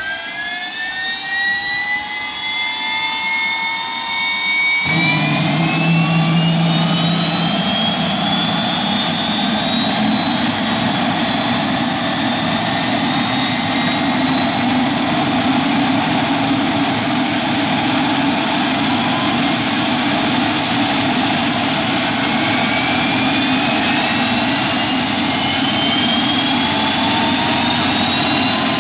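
Bell 206 JetRanger's Allison 250 turboshaft starting up: a turbine whine climbs in pitch, then about five seconds in a sudden rush of combustion noise comes in as the engine lights off. The whine keeps rising slowly as the engine spools up and the two-bladed main rotor begins to turn.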